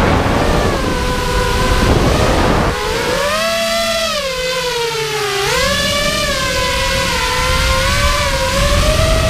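FPV racing quadcopter's brushless motors and propellers whining as heard from the onboard camera, the pitch sagging about four to five seconds in and then climbing quickly with the throttle. Wind rushes over the microphone through the first few seconds.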